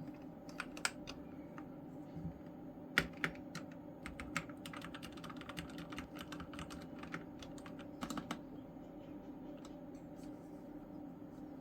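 Keys of an EvoFox gaming keyboard being pressed and typed on: irregular clicks, a few at first, then dense runs through the middle, thinning out near the end, over a steady low hum.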